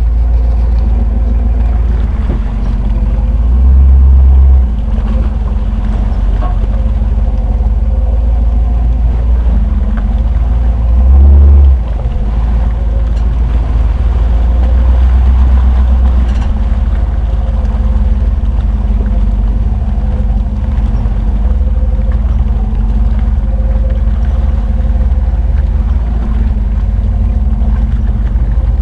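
Jeep engine running as it pulls through deep mud at low speed, growing louder with throttle about four seconds in, again near eleven seconds and around fifteen seconds. Off-road mud tires churn and slop through mud and water beneath it.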